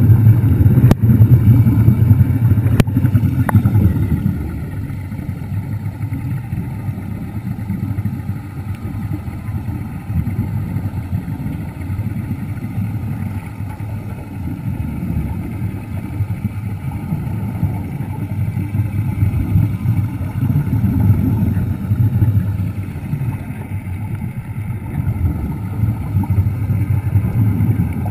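Underwater scooter running: a steady low rumble, loudest for the first few seconds, with two faint clicks near the start.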